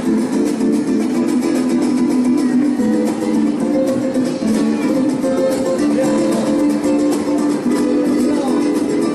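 Mariachi ensemble playing an instrumental passage, driven by rapid strummed guitars with sustained melody notes over them.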